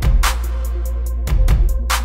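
Background electronic music with a heavy drum beat over a deep, steady bass.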